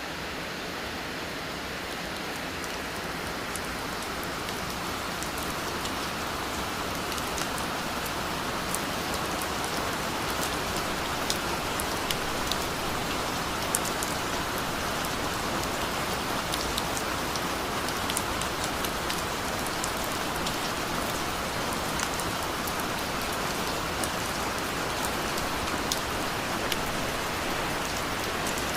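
Steady rain falling: an even hiss, with scattered sharp drop ticks standing out from a few seconds in.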